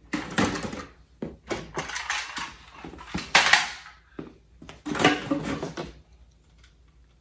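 Small plastic toys clattering as they are rummaged through and set down, in four or five short bursts that stop about six seconds in.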